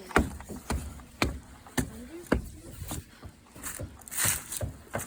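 Footsteps outdoors, about two steps a second, each a short crunch, with a brief brighter rustle about four seconds in.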